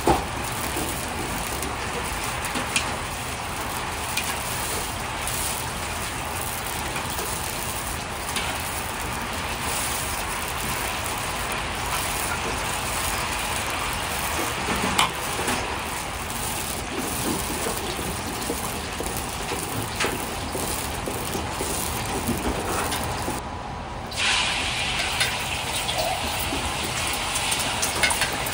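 Hot oil sizzling and bubbling steadily in an iron wok as green peas are oil-blanched, with a few sharp clinks of a metal ladle against the wok. Near the end, after a brief dip, the sizzle turns louder and sharper as beaten egg is poured into the hot oil.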